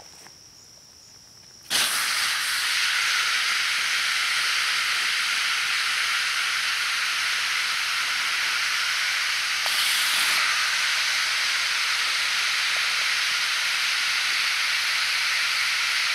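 Hot stones hissing and sizzling in the water of a birch bark container during stone boiling. The steady hiss begins suddenly about two seconds in and swells briefly about ten seconds in.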